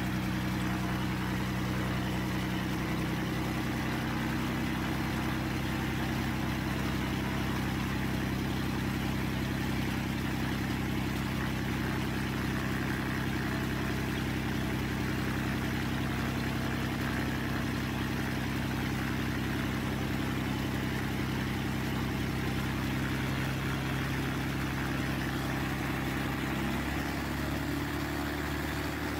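Piston aircraft engine and propeller running at a steady pitch during a ground run-up as the power is advanced toward full throttle. The tone shifts slightly about three seconds in and again near the end. It runs smoothly, the sign of an engine in good condition.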